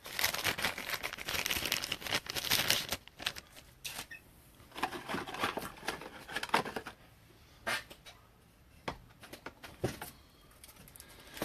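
Plastic crinkling and rustling as a stack of plastic card sleeves is handled: a dense run of crinkling for the first few seconds, then scattered crinkles and small clicks with quiet gaps between.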